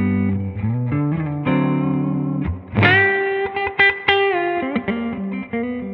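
Les Paul-style electric guitar played through a Rola Reverb 50 combo amplifier: ringing chords at first, then a single-note lead line that opens about halfway through with a note bent upward and held.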